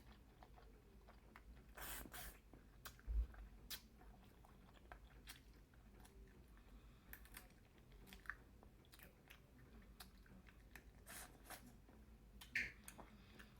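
Faint chewing and mouth clicks of a person eating seafood-boil food, with scattered soft crunches and clicks, a few louder ones about two and three seconds in and near the end.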